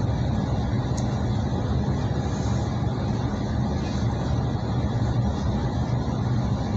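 Steady running noise of a passenger train heard from inside the carriage, a constant low rumble with no clear rail-joint rhythm. A light tick sounds about a second in.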